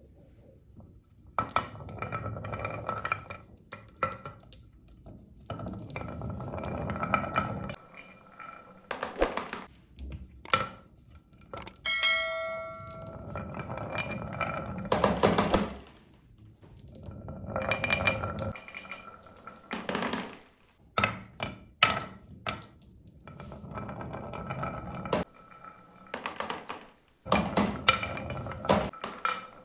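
Marbles rolling and clattering down a marble run: stretches of rolling rumble broken by sharp clicks and knocks as they drop onto and hit track pieces, with a brief bell-like ring about twelve seconds in.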